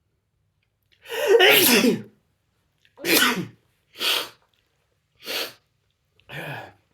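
A person sneezing five times in a fit. The first sneeze is the longest and loudest, with a voiced, sliding "ah-choo"; the next four are short, sharp sneezes about a second apart, fading somewhat toward the end.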